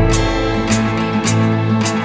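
Music with sustained instrument notes over a steady beat of about two sharp hits a second.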